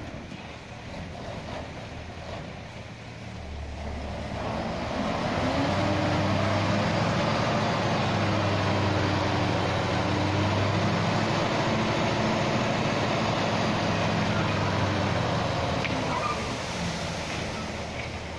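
Dump truck's diesel engine revving up a few seconds in and holding high revs to drive the hydraulic hoist as the loaded bed tips up to dump dirt, then easing off near the end.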